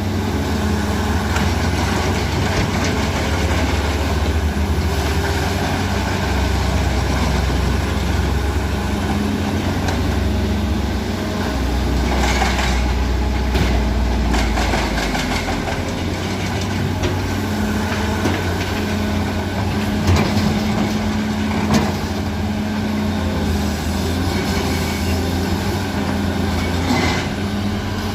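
Cat 336D hydraulic excavator's diesel engine running steadily under load as it digs and loads rock, its low note shifting about halfway through. Several sharp clanks of rock against steel stand out, the loudest two about 20 and 22 seconds in.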